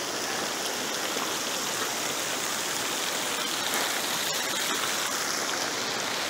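Steady rushing and splashing of running water from a mountain spring falling down a rock face and the stream below it.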